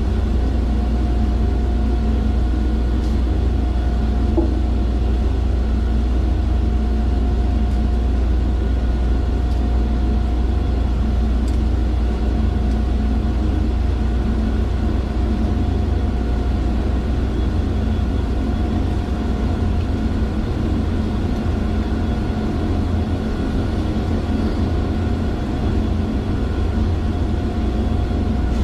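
Steady drone of running industrial plant machinery: a deep rumble with a steady whining tone over it, unchanging throughout.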